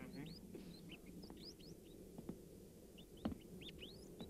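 Rats squeaking: many faint, short, high squeaks that slide upward, scattered irregularly, with a few soft knocks, the loudest a little past three seconds in.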